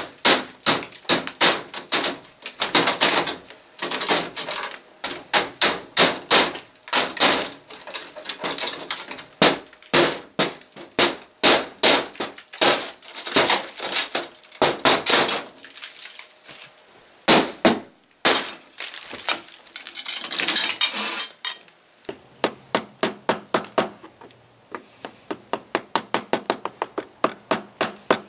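Rubber mallet striking a taped single-pane plate glass window in a quick series of blows, with breaking glass and clinking shards. Near the end come a faster, even run of lighter taps, about three a second.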